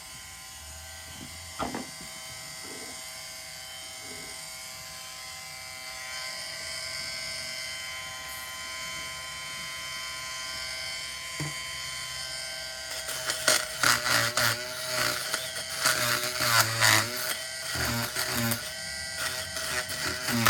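Oscillating multi-tool running with a steady high buzz. About 13 seconds in the blade starts biting into the work and the sound turns loud and uneven as it cuts through upholstery staples and layers of fabric.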